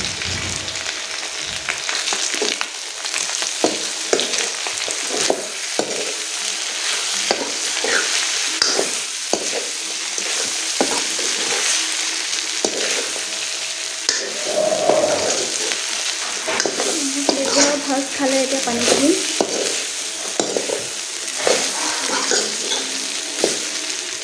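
Chicken pieces in spice paste sizzling as they fry in a kadai. A steel spoon stirs them, with repeated short scrapes and knocks against the pan.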